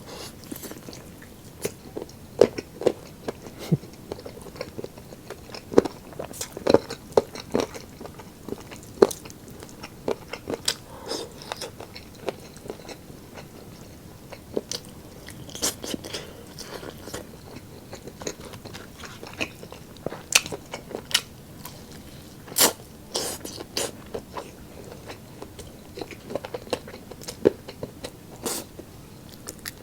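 Close-up eating sounds: wet chewing and biting of roast pork ribs and chicken, with irregular crisp clicks and smacks of the mouth and crackling skin.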